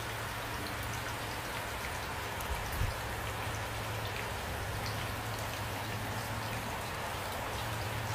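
Steady rain, with individual drops ticking on a surface over an even hiss and a steady low hum underneath. Two soft low knocks come a little under three seconds in.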